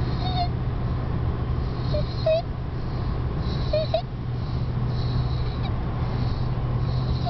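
A two-year-old's noisy breathing with inspiratory stridor due to laryngomalacia: short, high-pitched squeaky crows on the in-breaths, three of them in the first four seconds, over a steady low hum.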